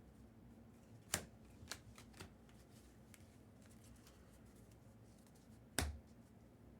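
Trading cards and packs being handled on a table: a few sharp clicks and taps about a second in, then a louder tap with a dull knock near the end, over a faint steady hum.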